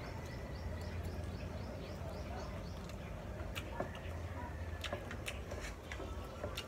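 Eating sounds: quiet chewing and mouth noises with a few sharp clicks in the second half. Over a steady low hum, a quick run of faint high chirps sounds in the first second.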